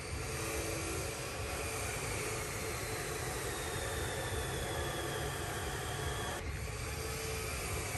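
Steady background hiss, with an abrupt shift in its character about six seconds in.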